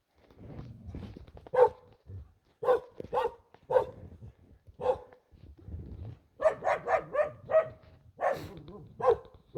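A hunting dog barks at a wild boar it is holding at bay. The barks come singly at first, then speed up to a quick run of about four a second from the middle on.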